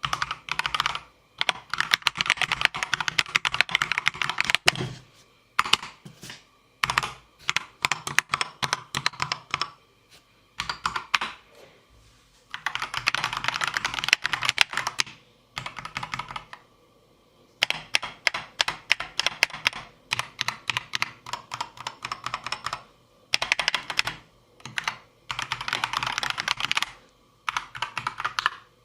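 Akko 3098B mechanical keyboard, stock with pre-lubricated stabilizers and foam layers inside, being typed on in quick bursts of keystrokes with short pauses between them, with one heavier key thud about five seconds in.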